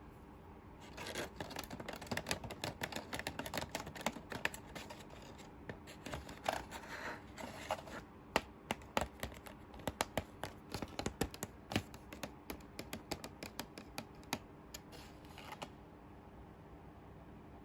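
Hands opening toy packaging: a dense run of scratching, rustling and sharp little clicks, starting about a second in and stopping about two seconds before the end.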